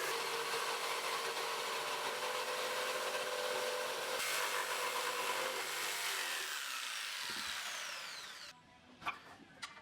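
Power saw cutting wood steadily. Near the end the motor is switched off and spins down with a falling whine, leaving a few faint ticks.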